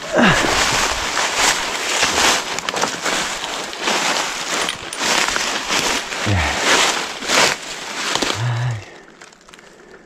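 Close rustling and crackling of dry leaves, twigs and brush being pushed through and handled, dense and loud, dropping away about eight and a half seconds in.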